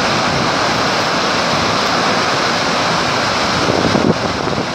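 Steady rush of a flash-flood torrent of muddy water plunging over a cliff into a canyon as a heavy waterfall.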